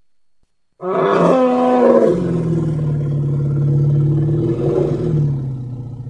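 An African bush elephant gives one long, low call starting about a second in. It begins higher and fuller, drops in pitch within the first second, then holds a steady low tone that slowly fades.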